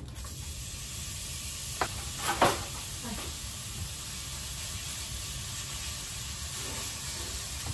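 Raw ground beef sizzling as it hits a hot frying pan, a steady hiss that begins the moment the meat goes in. A few sharp knocks and scrapes come about two seconds in as the meat is worked with tongs.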